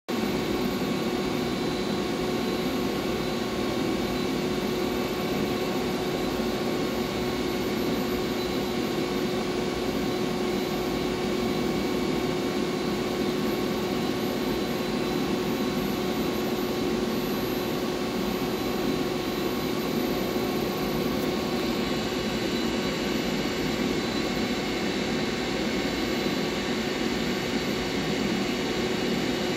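Steady mechanical hum and whir with a steady tone from a vintage Fanuc 120iB welding robot and its RJ2 controller running as the arm moves, with no welding arc. A higher hiss comes in about two-thirds of the way through.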